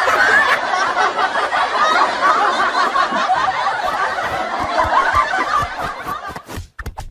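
People chuckling and snickering, a busy jumble of laughter that thins out near the end, where a few short knocks are heard.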